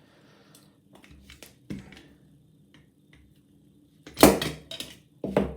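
Light metallic clicks and knocks from handling the dismantled lever lock's parts, with one louder knock about four seconds in followed by a couple more clicks.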